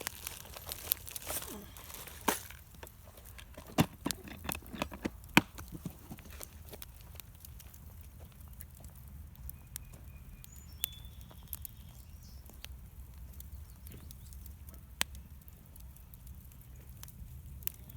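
Campfire crackling: scattered sharp pops and snaps over a low steady rumble, coming thick and fast in the first few seconds and only now and then after that.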